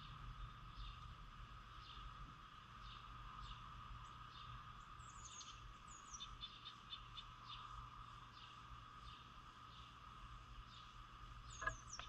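Faint backyard bird and insect ambience. A bird gives short, high, falling call notes about once a second, with a quicker run of high chirps around the middle, over a steady insect drone and a low rumble. A short sharp sound near the end stands out above the rest.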